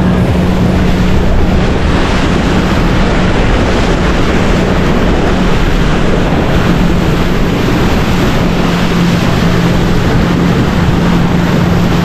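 Motorboat running at speed: a steady engine drone with a constant low hum, under loud wind buffeting the microphone and water rushing and splashing along the hull.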